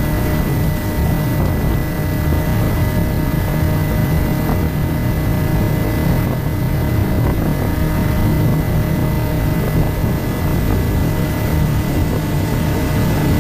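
FPV racing drone's motors and propellers running steadily in flight: a constant whir with a heavy low rumble and a few steady whining tones.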